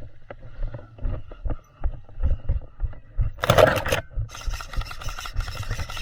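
Footfalls and scraping and rustling as a person moves through grass and brush: irregular thuds with clicks, a loud scrape about three and a half seconds in, then a dense rustling from about four seconds on.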